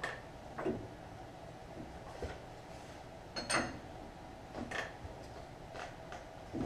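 Metal tools and parts clinking and knocking: about seven separate strikes, the loudest a ringing clink about three and a half seconds in, over a faint steady hum.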